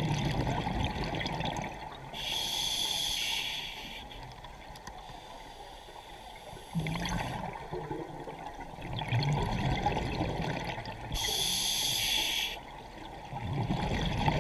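Scuba diver breathing through a regulator underwater: two hissing inhalations, one about two seconds in and one about eleven seconds in, with exhaled bubbles gurgling in between.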